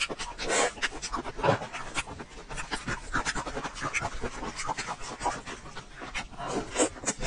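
Close-miked eating sounds: chewing and lip smacking on braised pig's trotter, mixed with gloved hands pulling the sticky glazed skin and meat apart. It comes as many short, irregular clicks and smacks.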